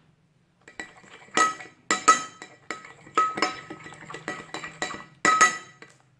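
A spoon stirring shampoo-and-salt slime in a bowl, clinking against the bowl in an irregular run of ringing strikes, a few of them sharper and louder.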